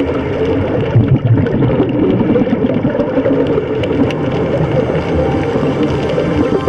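Muffled underwater rumble and bubbling from scuba divers' exhaled air, in uneven low surges with a few faint clicks.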